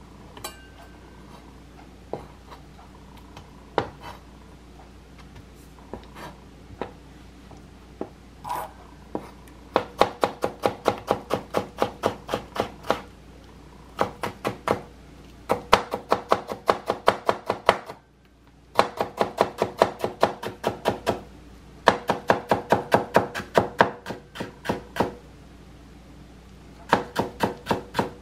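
Chef's knife slicing stacked cucumber slices into thin strips on a cutting board: a few single knocks at first, then from about ten seconds in, runs of quick knife taps, about five a second, in bursts of a few seconds.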